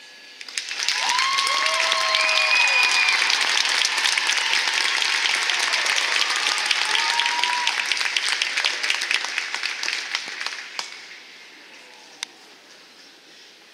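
Audience applauding and cheering at the end of a marching band performance, with a few whoops about a second in. The applause dies away about eleven seconds in.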